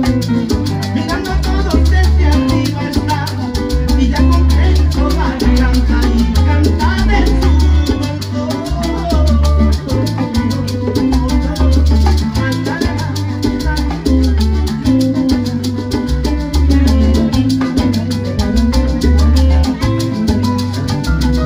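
Live salsa band playing: congas, timbales and cymbals over keyboard piano and a strong pulsing bass line in a steady dance rhythm.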